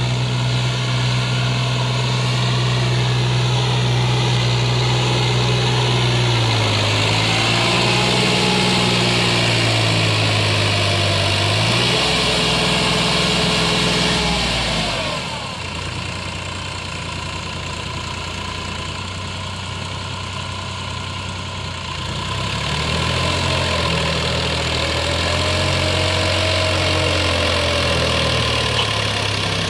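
Massey Ferguson 7250's three-cylinder diesel engine labouring as it pulls a heavily loaded soil trolley, stuck in soft ground. Its pitch sags and climbs back twice as it strains under the load, with a quieter stretch of several seconds around the middle.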